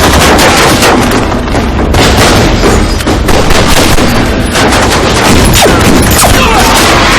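Film battle sound effects: dense, rapid gunfire mixed with booms, very loud with no let-up.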